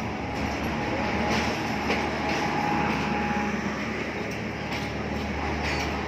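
Passenger train coaches rolling slowly alongside a station platform as the train comes in. The wheels rumble steadily on the rails with scattered clacks, and a faint thin squeal is heard around the middle.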